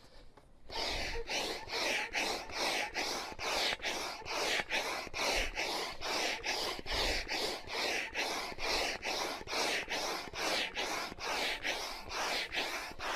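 Hand-operated air pump being worked steadily, pushing air into the tubes of an inflatable awning: a rhythmic rush of air at about three strokes a second, starting about a second in.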